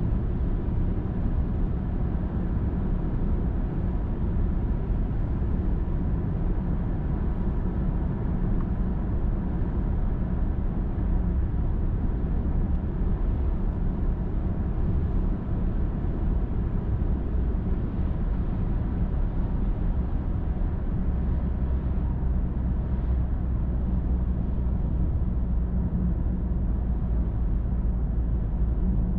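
A car driving on a highway: a steady, even rumble of tyres and engine. About two-thirds of the way through, the deepest part of the rumble becomes stronger and steadier.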